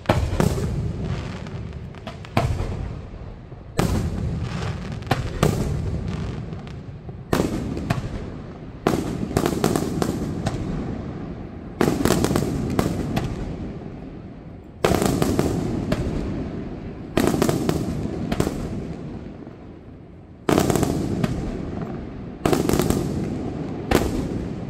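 Aerial firework shells bursting one after another, a sharp bang every one to three seconds, each followed by a rumbling echo that fades away.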